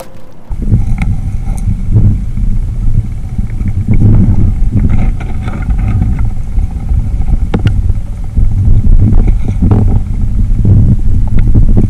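Muffled, loud low rumble of water moving around a submerged microphone, coming in suddenly about half a second in as the camera goes under beside a wire fish basket full of catfish. Scattered sharp clicks and knocks sound through it.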